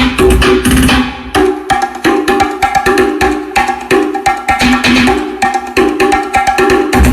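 Music played loud through a car sound system with four 15-inch subwoofers: a fast percussive beat with sharp clacking hits. The deep bass drops out about a second in and comes back right at the end.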